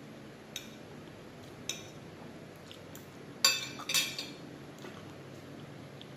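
Metal fork clinking against a plate: two light taps, then two louder ringing clinks about three and a half seconds in as the fork is laid down on the plate.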